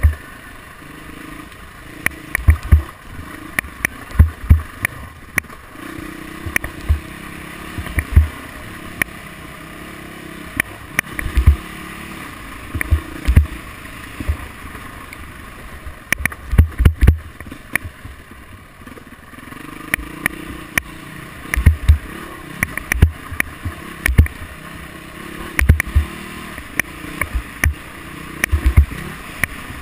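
Off-road vehicle's engine running and revving up and down as it rides a rough dirt trail, with frequent loud low thumps as the machine and its mounted camera are jolted over bumps.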